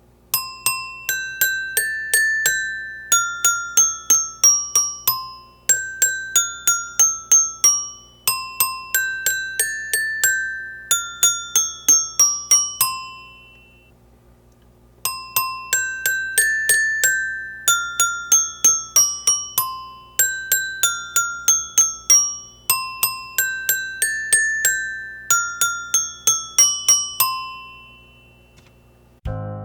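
A high, bell-like tune of struck notes falling in short runs, played through twice with a break of about a second halfway, over a faint steady low hum.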